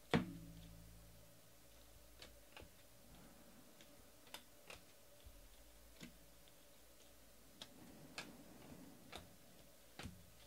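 Baseball trading cards being thumbed through one at a time and laid down, giving faint, irregular clicks and flicks, with one sharper knock just at the start.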